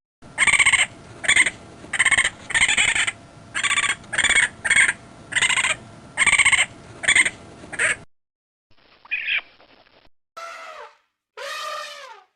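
Animal calls: about a dozen short, sharp calls in quick succession. After a pause, a different animal gives one brief call and then two longer calls that fall in pitch.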